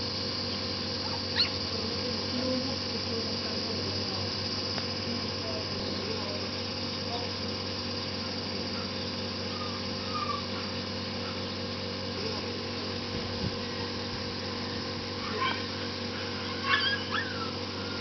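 Shiba Inu puppy giving a few short, high whimpers and yips, scattered and clustered near the end, over a steady outdoor background hum.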